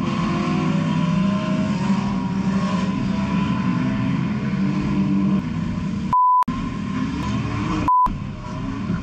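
Enduro race cars running on the track, several engines overlapping. A pure censor bleep cuts in twice, briefly about six seconds in and again just before the end.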